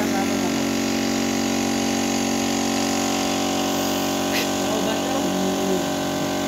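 Air compressor feeding a paint spray gun, its motor running with a steady hum. A short click comes about four seconds in.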